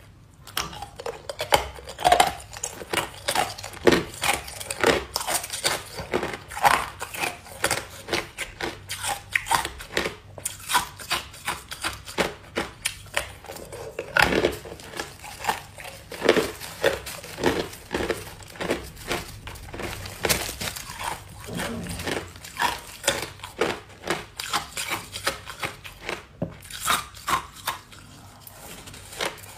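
Ice being bitten and chewed close to the microphone: a dense run of sharp crunches, several a second, easing off near the end. The plastic bag of ice crinkles as a hand reaches in for more.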